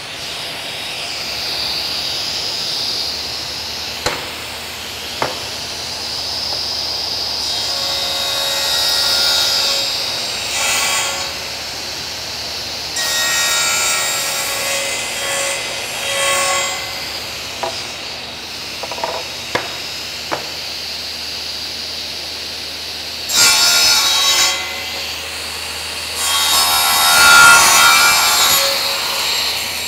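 Stationary circular saw running with a steady high whine, cutting through an oak cutting board four times to trim its edges square; each cut is a louder rasping stretch of a few seconds. A few sharp knocks come before the first cut.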